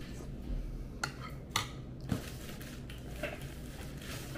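A few short clinks and scrapes of a utensil against a dish, about one to two seconds in, over a steady low hum.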